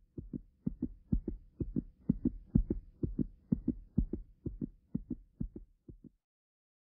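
Low thumps in close pairs, about two pairs a second, like a heartbeat, over a faint steady hum. They cut off suddenly about six seconds in.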